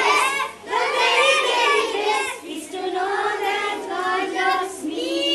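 A group of young children singing a song together in unison, in short phrases with brief breaks between them.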